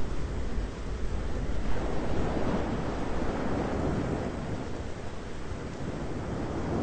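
Thunderstorm ambience: a continuous deep rumble that slowly swells and eases over a steady noisy wash, with no sharp claps.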